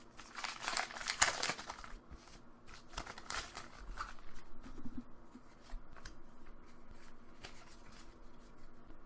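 Foil wrapper of a Pokémon Legendary Treasures booster pack crinkling and tearing open, loudest in the first two seconds with another burst about three seconds in, followed by scattered light clicks and rustles of the cards being handled.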